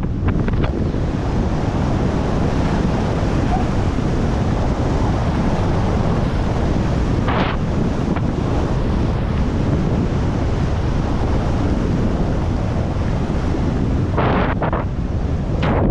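Wind rushing over a GoPro Hero 11's microphone as a skier descends a groomed piste at speed, over the steady hiss of skis sliding on packed snow. Sharper brief scrapes of the ski edges come about halfway through and twice near the end.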